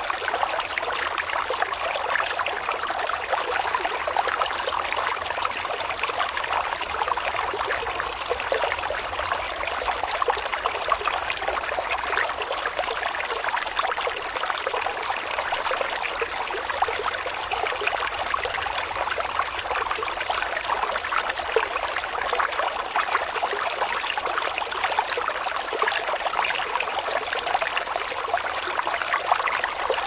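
Small mountain stream running over rocks: a steady, even rush of flowing and splashing water, bright rather than deep, with no change throughout.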